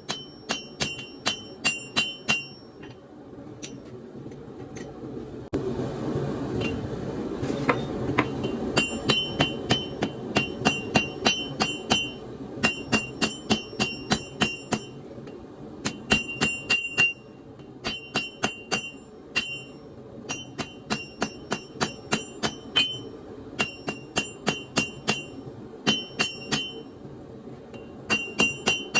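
Hand hammer forging hot leaf-spring steel on an anvil: runs of quick blows, about three to four a second, each with a bright metallic ring, broken by short pauses. From about six to nine seconds in a steady rushing noise swells under the blows.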